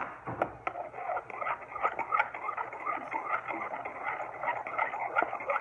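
Homemade glue-and-shaving-cream slime being stirred and squished by hand, a continuous irregular run of wet squelches and small sticky pops.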